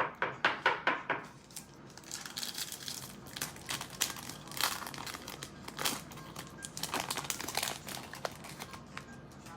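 Trading-card pack wrapper being torn open and crinkled by hand, with a quick run of crackles at the start and scattered rustling after it.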